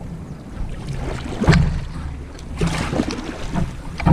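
Canoe paddle strokes splashing through lake water, about one every second and a half, with wind rumbling on the microphone.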